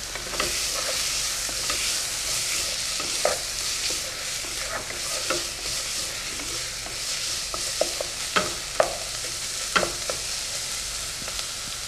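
Chopped onions and bay leaves sizzling gently in butter in a pot as they are lightly sautéd without browning, while a wooden spatula stirs them. Scattered scrapes and taps of the spatula against the pot sound over the steady sizzle.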